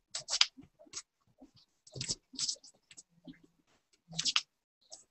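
Pen strokes scratching on drawing paper in short, irregular bursts of varying length, the sound cutting out to silence between strokes.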